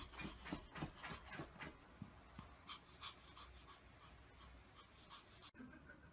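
A small fluffy white dog digging at a fabric couch cushion with its front paws: a faint run of quick scratches, about three or four a second, that fades out around three seconds in.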